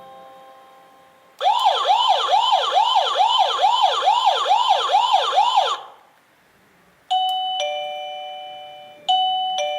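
INTENDVISION wireless doorbell receiver playing its electronic chimes. The last note of a melody fades, then a siren-like tone repeatedly swoops in pitch, about two and a half times a second, for about four seconds. After a short gap comes a two-note ding-dong, played twice.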